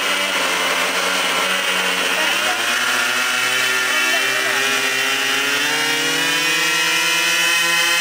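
The two engines of a radio-controlled B-26 model plane running together at different speeds. A few seconds in, one engine's pitch climbs steadily as it is throttled up.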